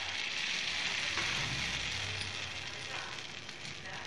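Hot oil sizzling in the wells of a kuzhi paniyaram pan as rice batter is ladled in, a steady frying hiss that eases a little toward the end.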